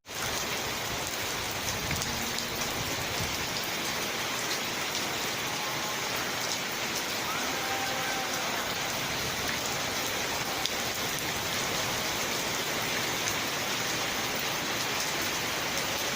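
Rain falling steadily: an even hiss of drops on surfaces that holds at the same level throughout.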